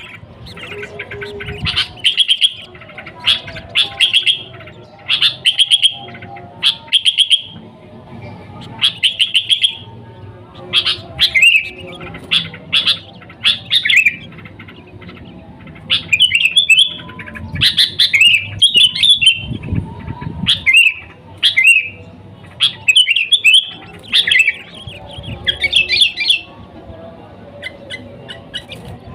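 Sooty-headed bulbul (kutilang) singing vigorously: short phrases of quick chattering notes, each under a second, repeated about once a second, the later phrases more varied and sweeping.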